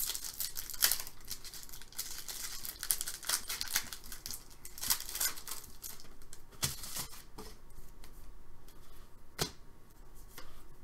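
A hockey trading-card pack's plastic wrapper being torn open and handled: irregular crinkling and sharp crackles, densest in the first few seconds and then scattered.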